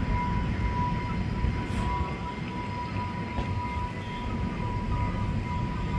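Talgo 8 passenger cars of an Amtrak Cascades train rolling past as the train departs: a steady, rumbling clatter of wheels on the rails. A steady high-pitched tone runs alongside it.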